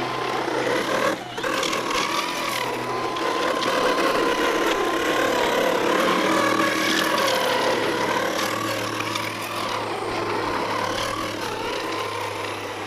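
Traxxas Slash 4x4 RC short-course truck's electric motor and drivetrain whining under throttle as it churns through snow, the pitch wavering up and down with the throttle.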